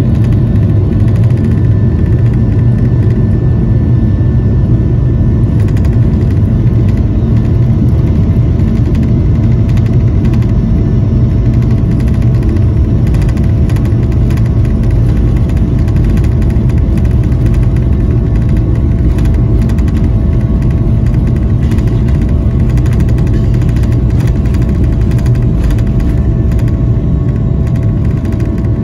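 Boeing 737-800's CFM56-7B jet engines at takeoff thrust during the takeoff roll, heard inside the cabin over the wing: a loud, steady rumble with a level droning whine, and light rattles through the middle.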